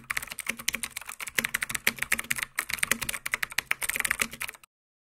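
Rapid typing on a computer keyboard: a quick, irregular run of key clicks, many a second, that stops abruptly a little before the end.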